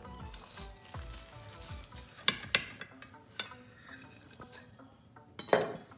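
Large kitchen knife cutting a toasted grilled cheese sandwich on a ceramic plate, with several sharp clinks and scrapes of the blade on the plate. There are two loud clinks close together a little past two seconds in, and a louder scrape near the end.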